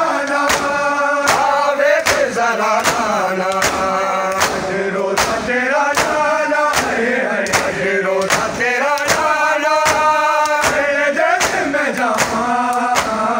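A group of men chanting a Punjabi noha in unison, with the steady slaps of hands striking bare chests in matam, about three strikes every two seconds.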